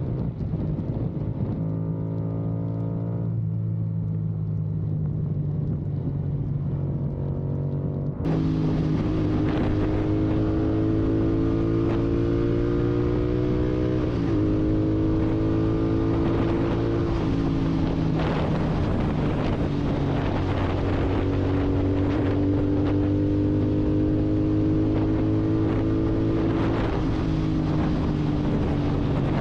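Royal Enfield Continental GT 650's parallel-twin engine running through a loud aftermarket Red Rooster exhaust. It is steady at first, then louder from about eight seconds in, with the engine note climbing slowly and dropping back three times, as when the bike is ridden and shifted up through the gears.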